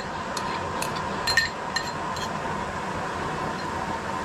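Metal spoon clinking against a small ceramic bowl, about six light ringing clinks in the first two and a half seconds, as minced garlic is scraped out into oil in a wok. A steady hiss runs underneath.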